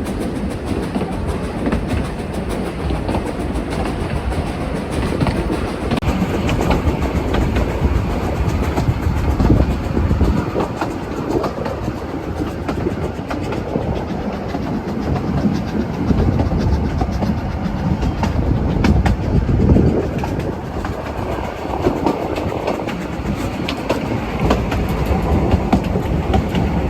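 Narrow-gauge train running along the track, its wheels clattering over the rail joints with a steady rumble.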